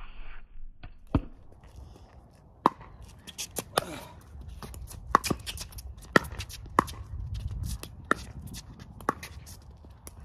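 Pickleball paddles striking a plastic pickleball in a back-and-forth drill rally: a sharp pop about once a second, with fainter clicks of the ball bouncing and shoes on the hard court between them.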